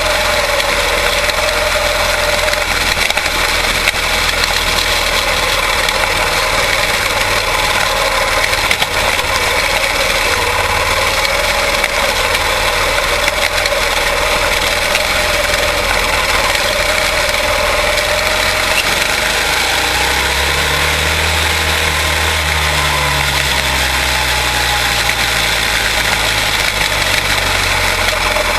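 Several quarter midget race cars' small single-cylinder Briggs & Stratton Animal engines running together in a race, an unbroken steady drone. A lower engine note swells and falls away about two-thirds of the way through, as one car comes close.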